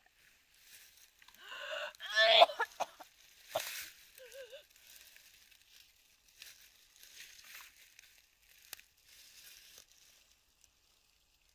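A person crying: one strained, wavering vocal cry about two seconds in, followed by quieter breathy sounds.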